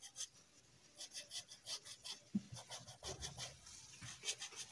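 Paintbrush working fabric paint into cloth: a quick series of faint brushing scrapes, with a short pause near the start.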